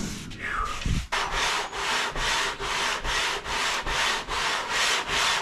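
An SR20DET's aluminium cylinder head is scrubbed back and forth on ATF-wetted sandpaper laid on glass, to flatten its face so the head gasket will seal. A knock comes about a second in, then steady rasping strokes at about three to four a second.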